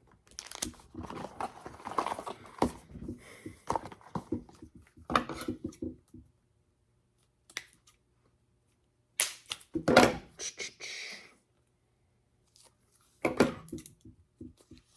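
Trading-card deck packaging being handled and cut open with scissors: irregular clicks, taps and rustles in bursts, loudest about ten seconds in, with a near-quiet pause just before.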